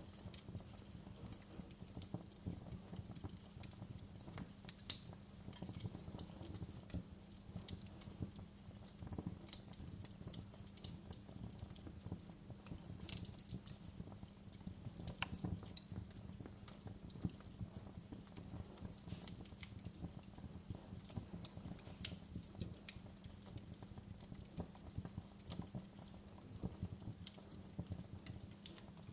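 Wood fire in a fireplace crackling, with irregular sharp pops and snaps over a low steady rumble.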